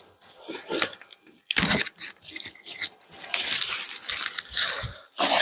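Potato plant stems and leaves being snapped off and handled: crunching, tearing and rustling in uneven bursts, the longest from about three seconds in.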